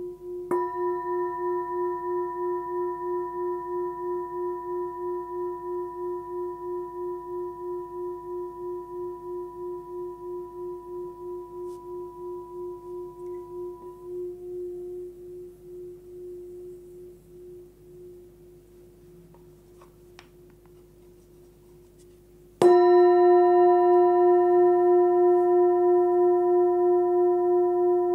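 Forged Tibetan singing bowl, 13.5 cm, with a fundamental of about 357 Hz (F#), struck and left to ring with a slow wavering beat, fading away over about fifteen seconds. Near the end it is struck again, louder, and rings on.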